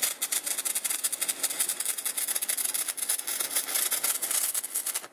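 Stick-welding arc from a 6011 fast-freeze rod, a steady dense crackle, ending abruptly.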